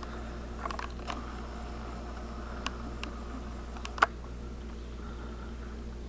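Steady low hum and hiss with a handful of short, sharp clicks scattered through it, the loudest about four seconds in.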